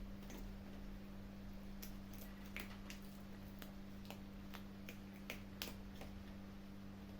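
Kittens chewing and crunching their food: irregular sharp clicks and crunches, a few a second, the loudest a little past the middle, over a steady low hum.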